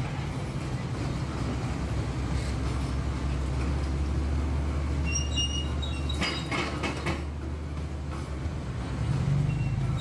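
Diesel engines of heavy construction machinery running with a steady low rumble. A brief high squeal about five seconds in and a few knocks between six and seven seconds.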